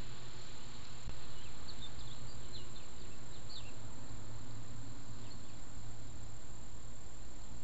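Steady hiss and low hum of a trail camera's microphone, with a quick run of about a dozen short, high chirps from about two to three and a half seconds in.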